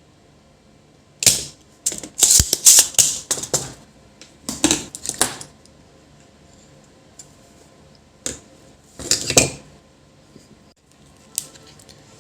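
Hard clicks and clattering from tools and parts being handled on a workbench. They come in short bunches: a dense run a couple of seconds in, another near the middle, and a few single clicks later.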